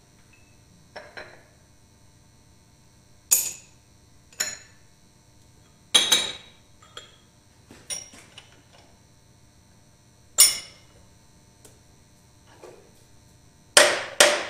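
Irregular sharp metallic clanks, about eight of them, with a double clank near the end, as a steel workpiece is set and clamped in a milling machine's vise and the vise handle is worked. A faint steady hum runs underneath.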